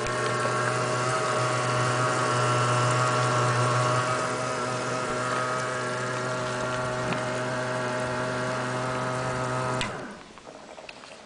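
12-volt electric sprayer pump running with a steady hum, then cutting off abruptly about ten seconds in.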